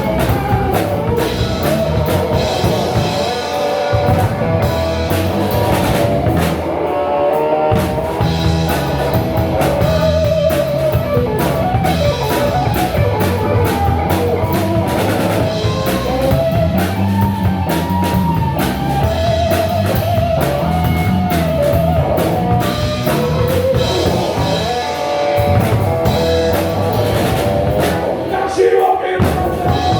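Live blues-rock band playing, with electric guitar over a drum kit.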